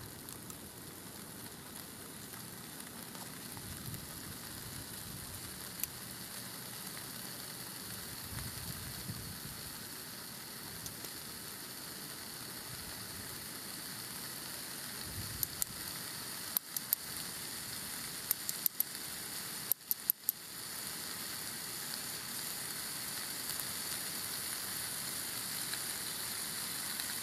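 Chicken tenderloins frying in a pan: a steady sizzle that grows slightly louder, with a few sharp clicks about two-thirds of the way through.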